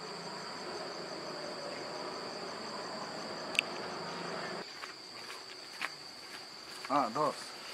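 Crickets chirping in a steady, high, evenly pulsing trill. Under it, a low murmur cuts off about halfway through. A sharp click comes about three and a half seconds in, and two short pitched sounds come near the end.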